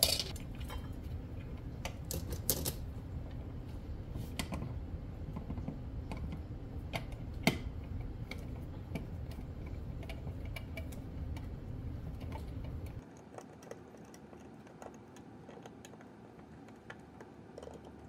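Scattered light clicks and taps of small hard objects being handled, over a low steady hum that stops about thirteen seconds in.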